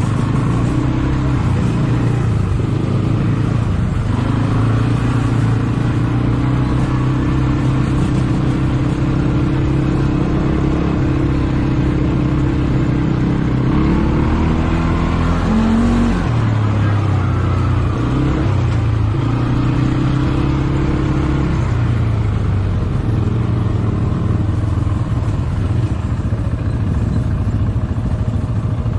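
ATV engine running steadily, with a short rise in revs about halfway through before settling back.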